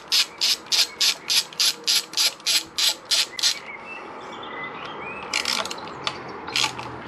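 Socket ratchet wrench clicking in quick, even strokes, about four clicks a second, as it backs out the clutch slave cylinder bolts. The clicking stops about three and a half seconds in, with a short burst of clicks later and a few more near the end.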